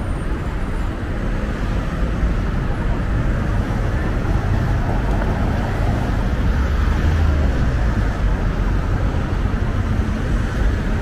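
Steady city traffic noise with a deep, even rumble underneath.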